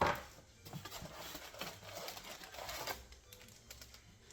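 Rustling and handling of packaging while items are unpacked, starting with a sharp knock and continuing for about three seconds before dying down.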